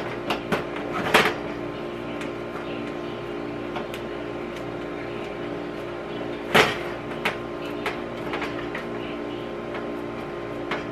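Metal springform pan knocking and shifting on an electric stove's coil burner while a crumbled cookie crust is pressed into it by hand. A few sharp knocks, the loudest about six and a half seconds in, come over a steady hum.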